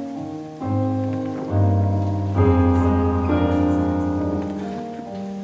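Kawai ES6 digital piano playing a slow piece of held chords over single bass notes, the harmony changing about once a second, with a fuller, louder chord about two and a half seconds in.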